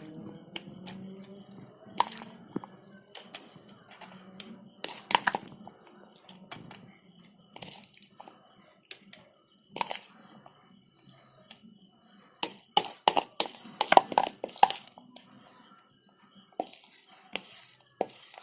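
Scattered taps and scrapes of a spoon against a bowl and plate as a spiced potato mixture is spooned over potato chips, with light crunching of the chips; the taps come thickest about two-thirds of the way through.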